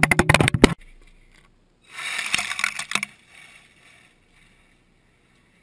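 Radio-controlled car tearing through loose gravel right at the camera: a rapid clatter of knocks over a low motor hum for about a second. After a short pause, a second hiss of sprayed gravel about two seconds in fades away as the car drives off.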